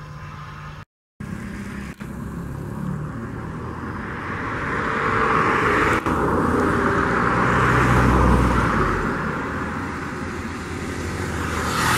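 Aircraft engine noise swelling to a peak about eight seconds in and then easing, a broad rushing hiss over a low rumble. The sound cuts out completely for a moment about a second in.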